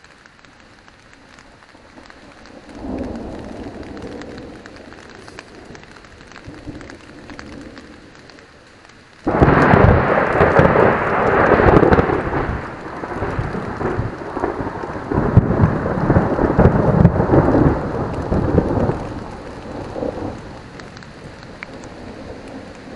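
Thunderstorm heard from inside a tent: light rain patters on the tent fabric while thunder rumbles faintly a few seconds in, then a loud thunderclap breaks suddenly about nine seconds in and rolls on for about ten seconds before fading.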